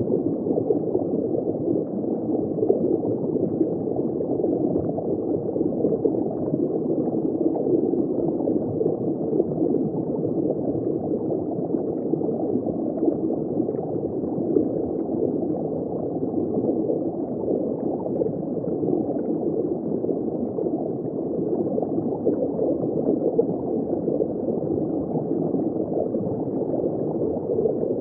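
Underwater ambience: a steady, muffled bubbling and gurgling of water with no high tones.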